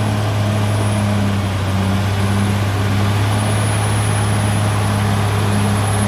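Caterpillar D6R XL bulldozer's diesel engine running steadily: a constant low hum with a throbbing pulse about twice a second.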